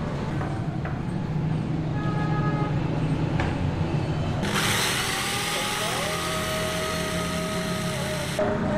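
Handheld electric drill spinning up with a rising whine, then running steadily as it bores a small hole through a wooden straight-razor handle scale. It runs for about four seconds from the middle and cuts off abruptly near the end, over a low steady rumble.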